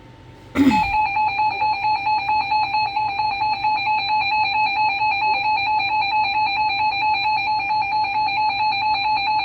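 Emergency Alert System attention signal: a loud, steady electronic alarm tone sounding for about nine seconds. It opens with a short crackle about half a second in and announces an incoming emergency alert.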